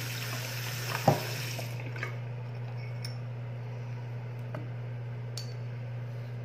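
A stainless steel pet bowl knocks sharply once on the counter about a second in, over a hiss of running water that stops shortly after. A few light clicks and taps follow, over a steady low hum.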